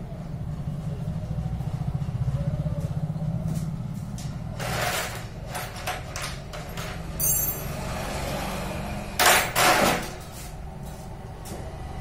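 An engine running steadily at idle, a low rumble with a fast even pulse, with a few short knocks and clanks partway through and two loud short bursts of noise about nine and a half seconds in.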